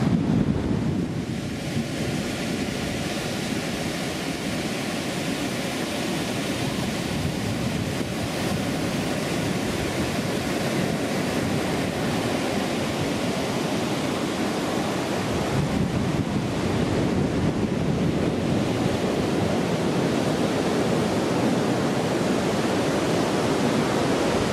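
Ocean surf breaking and washing up on a sandy beach, a steady rushing noise, with wind buffeting the microphone.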